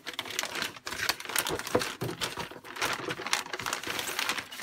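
A parcel's packaging being opened by hand, crinkling and rustling with a quick, irregular crackle.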